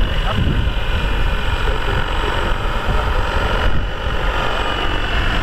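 Large model helicopter flying overhead, its rotor and motor making a steady high whine over a continuous low rumble.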